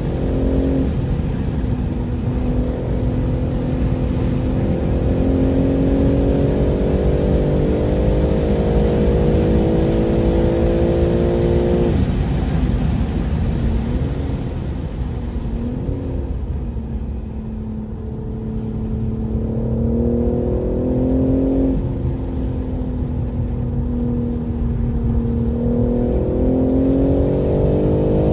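2023 BMW M3 Competition's twin-turbo straight-six under hard acceleration through the gears. The pitch climbs steadily for long stretches and drops suddenly at each upshift, about twelve seconds in, again a few seconds past the twenty-second mark and near the end. In the middle the revs are lower and waver up and down.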